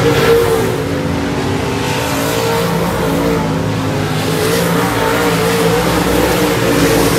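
A pack of dirt-track modified race cars running hard around the oval, several V8 engines overlapping, their pitches rising and falling as the cars work through the turns.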